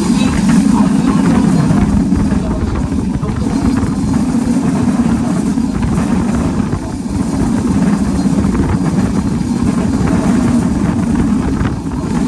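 Passenger train running at speed, heard from inside a coach at the window: a steady, loud low rumble of wheels on rail mixed with rushing air.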